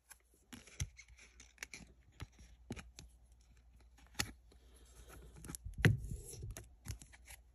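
A trading card being slid into a rigid plastic top loader and the plastic being handled: scattered light clicks and scrapes, with a short sliding rustle about six seconds in.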